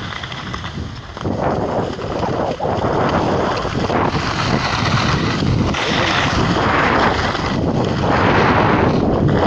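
Wind rushing over the microphone of a camera carried downhill on a ski slope, with the hiss of sliding on packed snow. It grows louder about a second in as speed picks up.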